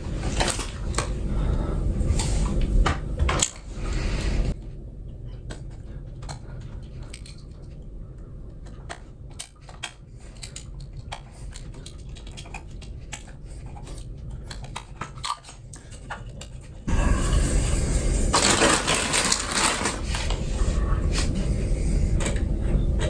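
Scattered metallic clicks and scrapes of hand work on a motorcycle's steel foot peg while its worn rubber cover is cut away, over a low steady hum that drops and returns with cuts in the footage.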